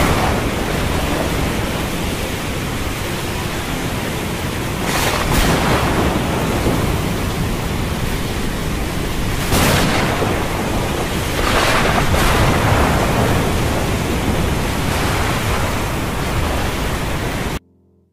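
Thunderstorm ambience: a steady rush of rain over a low thunder rumble, swelling several times. It cuts off suddenly near the end.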